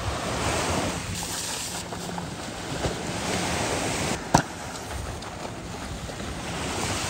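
Shore-break waves washing up a sandy beach, a steady wash that swells and ebbs, with wind on the microphone. One sharp slap about four seconds in.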